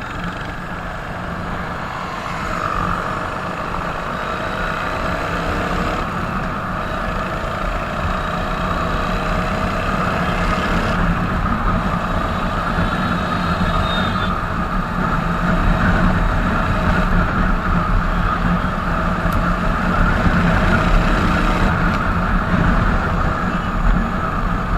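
Royal Enfield Hunter 350's 349 cc single-cylinder engine running steadily while the motorcycle is ridden on the highway, growing gradually louder.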